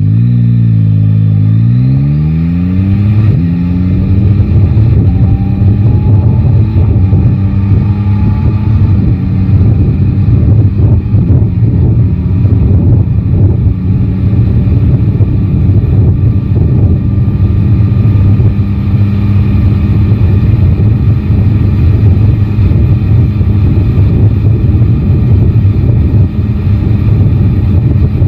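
Yamaha Tracer 9 GT's three-cylinder engine under way. The revs dip in the first couple of seconds, then climb and settle into a steady cruise, with heavy wind and road noise over it.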